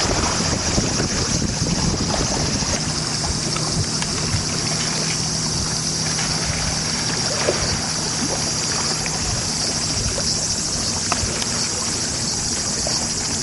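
Lakeshore ambience: wind buffeting the microphone over water, with a steady high-pitched hiss and a low steady drone that fades out about ten seconds in.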